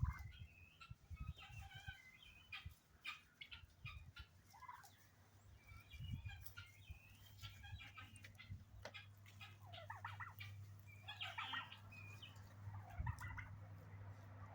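Backyard flock of chickens and turkeys calling quietly: many short clucks and chirps scattered throughout.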